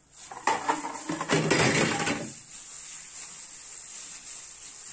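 Minced meat, breadcrumbs and oil being kneaded by a hand in a plastic glove in a steel bowl: about two seconds of loud mixing noise near the start, then fainter.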